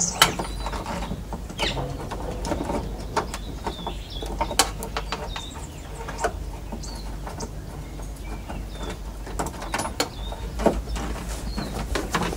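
Irregular small clicks and knocks of a Holden Commodore VE door key lock cylinder, with its key in it, being fiddled by hand against the exterior door handle.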